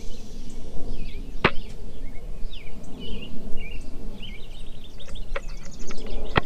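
Songbirds chirping in short, repeated calls over a low rumble, with a sharp click about a second and a half in and two more near the end.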